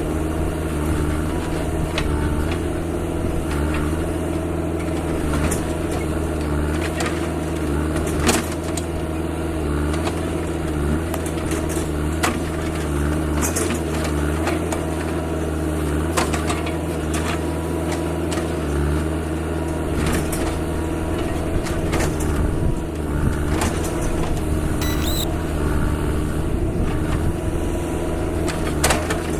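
A heavy machine's engine running steadily at a constant speed, with scattered clicks and knocks over it, one sharp knock about eight seconds in.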